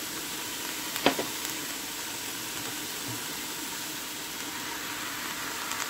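Steady, even sizzling hiss of diced onions heating in a pan on the stove, with a single sharp tap of a metal spoon about a second in.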